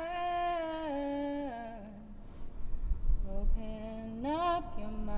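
A woman singing a slow song, holding long notes that glide from one pitch to the next, falling in the first half and rising again near the end.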